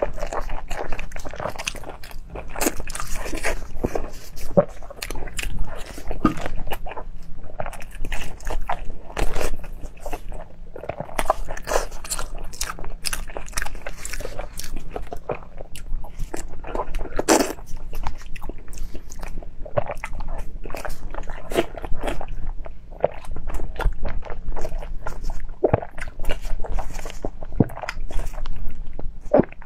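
A person eating close to a clip-on microphone: irregular biting and chewing with many short mouth clicks. Near the end she bites into a pale green vegetable.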